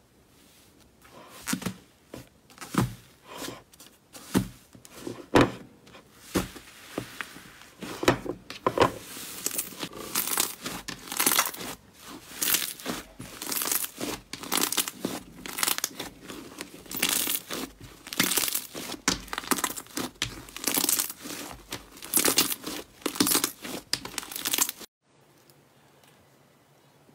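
Thick white slime squeezed, stretched and pulled apart by hand, giving a dense run of crackling, tearing sounds that stop suddenly near the end.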